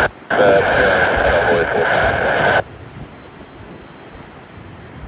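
A short burst of air traffic control radio, hissy and narrow-sounding with a steady whistle through it and no clear words, cuts off suddenly about two and a half seconds in. Airport background noise with distant jet rumble follows.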